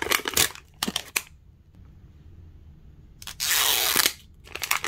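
Plastic wrapping crinkling and tearing as it is pulled off a Zuru Mini Brands capsule ball: a few crackles, a pause, then a longer, louder tearing sound about three and a half seconds in, and more crinkling near the end.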